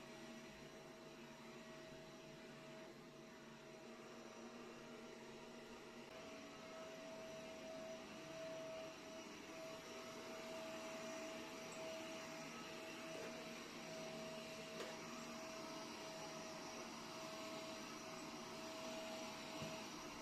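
A steady machine hum with a high tone that swells and dips about once a second from about six seconds in.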